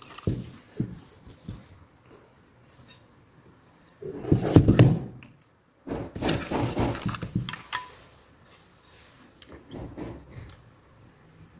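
Handling noise of a circuit board and tweezers on a paper-covered bench: small knocks and clicks, with two louder rustling scrapes about four and six seconds in.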